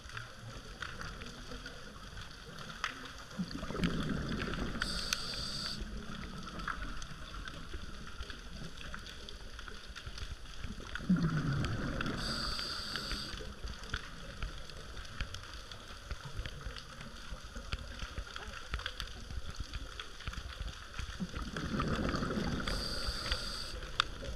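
Scuba diver breathing through a regulator underwater: three slow breaths about eight seconds apart, each a short hiss of inhaling and a low rumble of exhaled bubbles, over a faint steady crackle.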